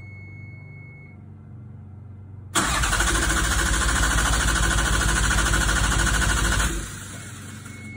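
Starter cranking the Toyota 2GR-FE V6 in a 1991 MR2, with a fast, even chug, for about four seconds without the engine catching, then stopping. It sets in suddenly a little over two seconds in. The engine fails to fire; the owner suspects no spark because the crank sensor gives no RPM signal.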